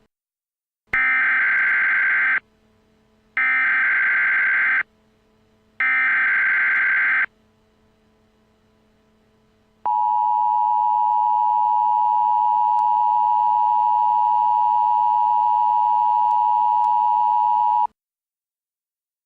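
Emergency Alert System tones: three bursts of the SAME digital header, each about a second and a half long, then the steady two-tone EAS attention signal for about eight seconds before it cuts off. A faint low hum runs underneath.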